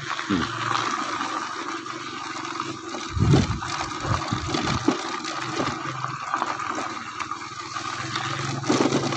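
Riding on an electric bicycle over a rough road: a steady rushing noise of wind and tyres with a faint steady hum, and a few low thumps about three to five seconds in.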